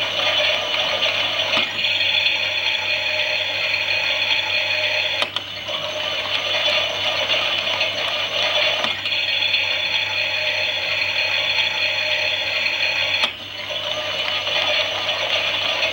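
Toy Klein Miele washing machine running a wash, its small motor whirring and rattling as it turns the drum. The sound cuts briefly with a click three times, about every four seconds.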